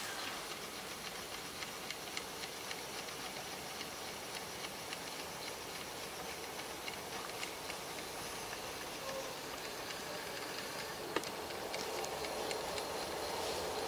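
A 3D-printed phone slider's carriage moving slowly along its rail: a steady hiss with light, regular clicking, and one sharper click about three quarters of the way through.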